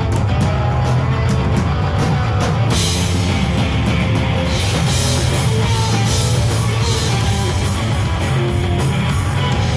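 Live rock band playing loud: electric guitars and a drum kit. About three seconds in, crashing cymbals come in and keep washing over the music.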